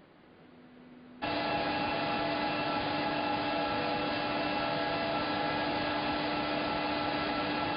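Corrugated board production line (corrugator) running at production speed, about 360 metres per minute: a loud, steady mechanical noise with several steady hum tones. It cuts in suddenly about a second in, after faint hall ambience.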